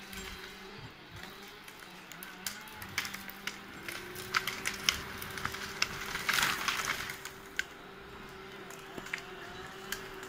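Steady hum of a Larix 3T cable yarder working, with repeated cracking and snapping of dry branches and brush, thickest a little past the middle.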